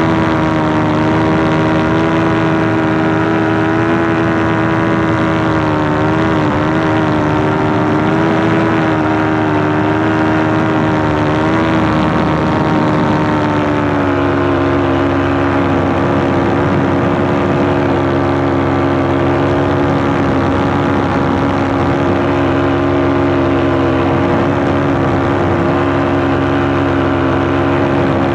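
Paramotor's engine and propeller running steadily in flight. The engine note steps slightly lower about halfway through and then holds.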